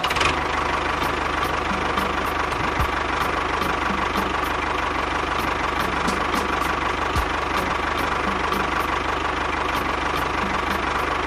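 Mini DIY toy tractor's engine sound running steadily, with a fast, even chugging pulse and a constant hum.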